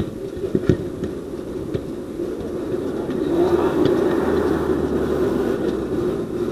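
Outdoor traffic noise from a motor vehicle passing nearby. It swells about three seconds in, with a low engine hum under it. Two sharp thuds of the ball being kicked come in the first second.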